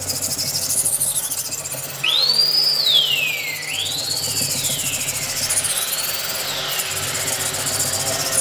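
A hard-steel Miyabi 5000MCD kitchen knife blade scraping back and forth on a whetstone during sharpening. From about two seconds in, a squeal rises and falls in pitch with each stroke, fading over the last few strokes.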